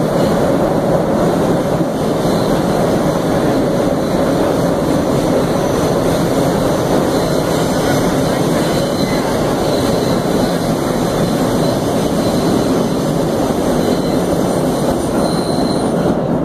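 Vintage R1/9 subway car running along the track, heard from inside the car: a loud, steady rumble of wheels and running gear that does not let up.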